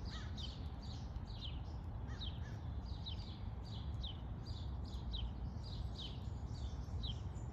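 A small bird chirping over and over: short, high notes that slide downward, two or three a second, over a steady low background rumble.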